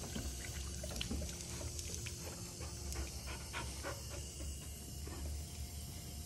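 A Deutsch Drahthaar puppy drinking from a trickling garden hose spray nozzle, with quick wet lapping clicks for the first few seconds, then panting, over a low steady rumble.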